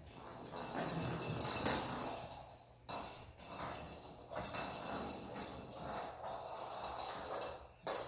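Kittens scampering on a hardwood floor while batting a small cat-toy ball that jingles as it rolls. The rattling and paw taps come and go irregularly.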